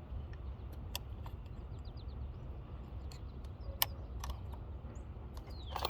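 A few sharp, scattered clicks and taps of a flathead screwdriver prying at the plastic tabs of a trailer light cover, over a steady low rumble, with faint chirps about two seconds in.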